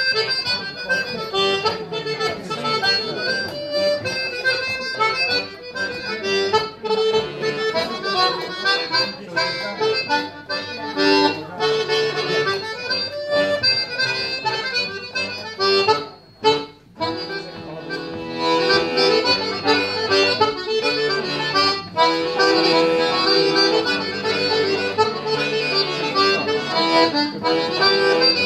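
Homemade button accordion playing a tune, with a brief break in the playing about sixteen seconds in.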